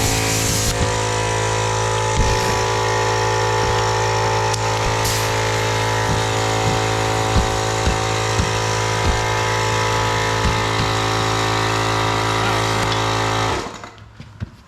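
Air compressor running steadily with a strong low hum, inflating a tubeless dirt bike tire to seat its bead. It shuts off abruptly near the end.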